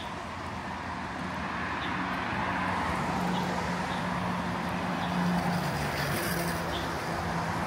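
City street traffic: a motor vehicle running close by with a steady low hum over the general road noise, growing louder over the first few seconds and then holding.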